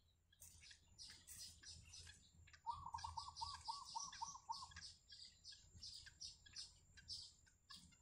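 Yellow bittern nestlings giving rapid, high-pitched begging chirps as the adult feeds them at the nest. About two and a half seconds in, a run of eight lower, evenly spaced notes, about four a second, rises over the chirping for two seconds.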